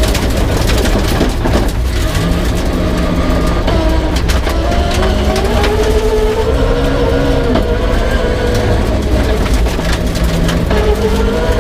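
Peugeot 306 rally car's engine running hard on a special stage, its pitch climbing and dropping with several gear changes, over a constant clatter of knocks and rattles from the car.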